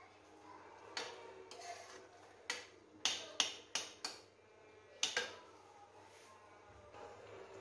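A metal ladle clinking and knocking against a metal kadhai while stirring a curry: about seven sharp clinks, most of them bunched together in the middle.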